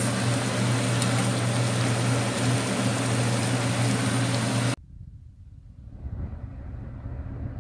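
A steady machine hum with a hiss over it, which cuts off abruptly nearly five seconds in; a much quieter low rumble follows.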